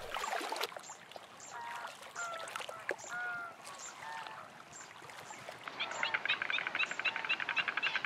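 Greater flamingos calling with short goose-like honks, scattered through the first half. From about five and a half seconds a fast, even rattling chorus of frogs joins in.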